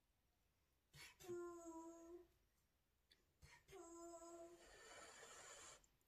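A woman's short closed-mouth 'mmm' hums of enjoyment while eating, twice, each about a second long and falling slightly in pitch, with small clicks of eating before each. A longer breathy hiss follows the second hum.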